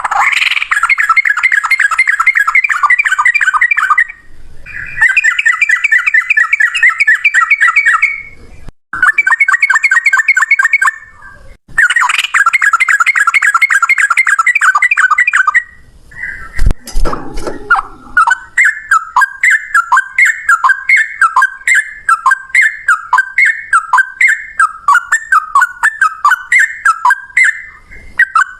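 Yellow-vented bulbul (trucukan) singing: long phrases of very rapid chattering notes broken by short pauses, then near the end a slower run of repeated, separate notes, about two a second.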